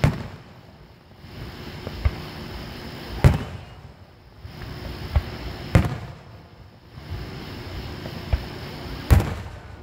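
Aerial fireworks shells bursting overhead: a series of sharp booms every second or so, about seven in all, the loudest about three seconds in, near six seconds and near the end.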